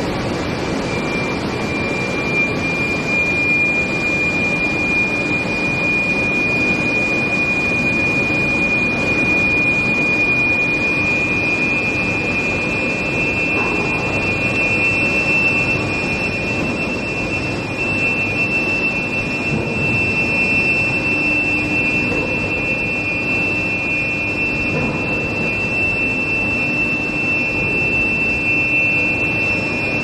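Steel plate induction reheating line running: steady industrial noise with a high, steady whine from the energised induction coils. A second, slightly higher whine joins about a third of the way in.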